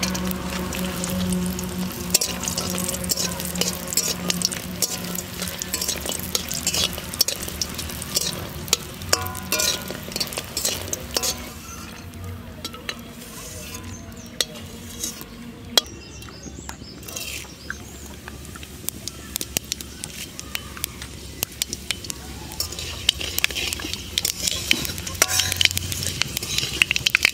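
Lentil dumplings (daler bori) frying in oil in a metal wok, sizzling, with a steel spatula scraping and clinking against the pan as they are turned. The sizzle dies down midway and picks up again near the end, when whole spices go into the hot oil and are stirred.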